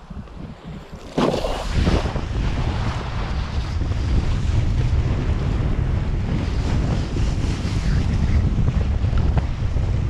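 Wind buffeting the action camera's microphone over the hiss and slap of an Mday kiteboard planing through choppy water. Quieter for about the first second, then loud and steady.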